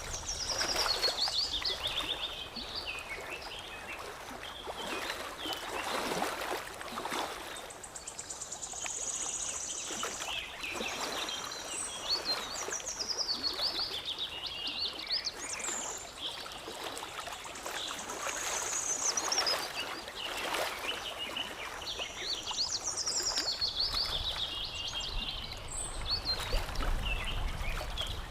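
Songbirds singing repeated warbling phrases and high trills over water lapping and trickling in irregular small surges.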